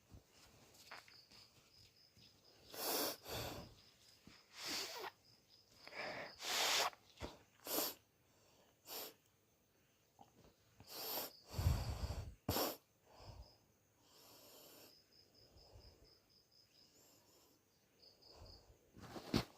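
A person with a cold making a series of short, harsh bursts of breath from the throat and nose, several in quick succession, typical of coughing and sneezing fits. Crickets chirp faintly in the pauses.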